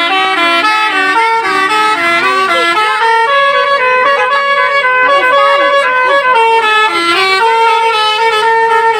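Bus basuri 'telolet' horn, a set of air-horn trumpets sounding several tones together, playing a long melody of held, stepped notes with a few short pitch bends midway.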